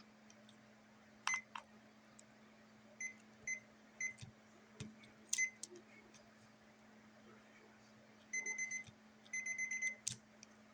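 Fidget board being played: scattered sharp clicks and short high-pitched beeps, with two quick runs of rapid beeping near the end.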